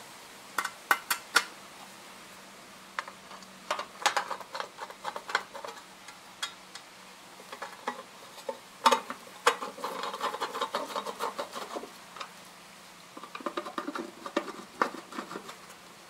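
The access cover of an electric water heater being fitted back onto the tank and screwed down with a screwdriver: scattered clicks and clinks of the cover and tool, with stretches of scraping as the screws are turned.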